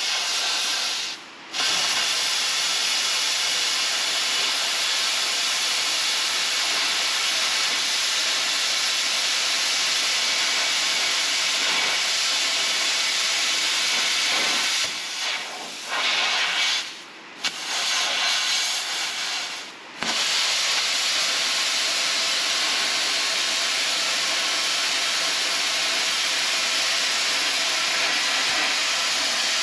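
Plasma cutter hissing steadily as its arc cuts through the sheet-steel floor pan of a 1966 Ford Mustang. The hiss stops briefly about a second in and cuts out a few times in the middle as the torch is released and restarted.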